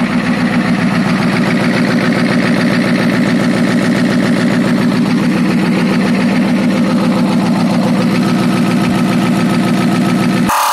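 Ford 6.9L IDI V8 diesel engine idling steadily with an even rhythmic pulse, running on a freshly replaced injection pump. The sound cuts off abruptly just before the end.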